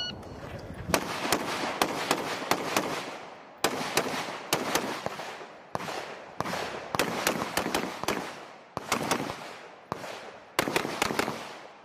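A shot timer's start beep, then a string of about two dozen gunshots, mostly fired in quick pairs. Each sharp crack rings out briefly after it.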